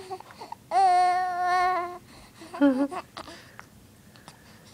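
Baby vocalising: one long, steady, held cooing tone lasting over a second, then a shorter wavering coo.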